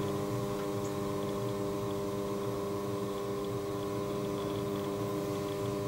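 Electric potter's wheel motor running at a steady speed with an even hum.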